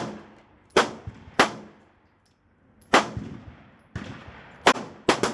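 Pistol shots fired one at a time at uneven intervals: five sharp cracks and one fainter one, each followed by a brief echo.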